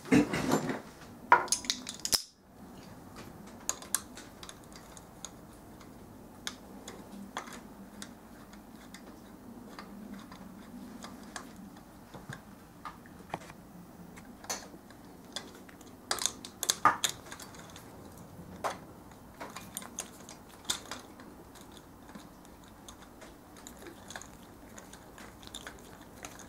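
Scattered metallic clicks and clinks of hand tools and bolts against a pit bike engine's cylinder head as the two long cam chain tunnel bolts are fitted and done up by hand. A louder burst of handling noise comes in the first two seconds, and a quick run of clicks comes a little past halfway.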